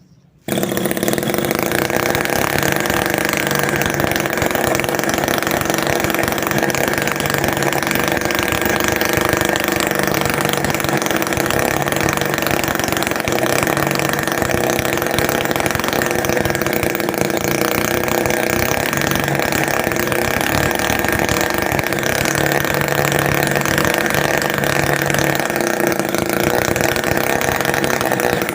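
Homemade mini two-stroke engine built from a refrigerator compressor, running steadily at an even speed; it comes in abruptly about half a second in.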